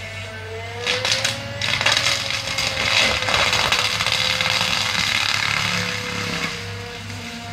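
Excavator-mounted Seppi hammer mulcher with its rotor spinning with a steady whine over the excavator's engine hum. About a second in, the head bites into brush and branches, and for several seconds the fixed hammers shred the wood with loud crackling and snapping. Near the end it eases back to the free-spinning whine.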